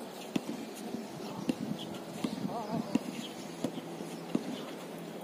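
A basketball bouncing on an outdoor hard court, sharp bounces about once a second, with a brief faint shout from a player about halfway through.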